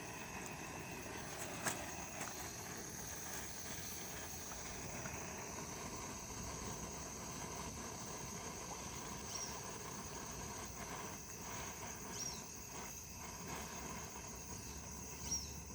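Outdoor ambience: a steady high insect drone over a low, even rumble of noise. A single sharp click comes just under two seconds in, and three short high chirps come later.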